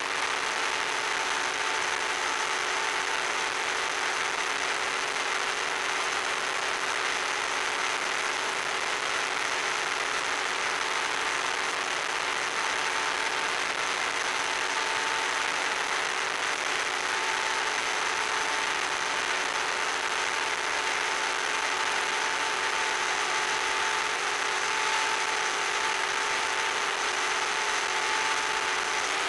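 Onboard audio from an electric FPV RC plane: the motor and propeller running at a steady cruise, a constant whine of several steady tones under a strong steady hiss.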